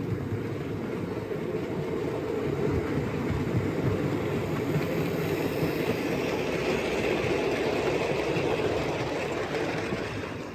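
OO gauge model diesel locomotive running along the track: a steady whirring rumble of motor and wheels on rail that grows louder as it passes and fades away near the end.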